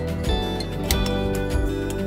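Background music with a steady beat and sustained melodic tones.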